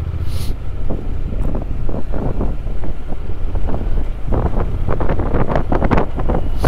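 Wind buffeting a microphone on a moving motorcycle, in irregular gusts over a steady low rumble from the ride.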